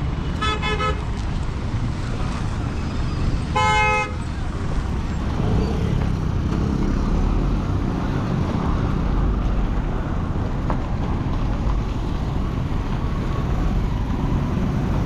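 Road traffic with two vehicle horn honks: a short stuttering toot at the start and a louder single honk about four seconds in, over a steady rumble of passing vehicles.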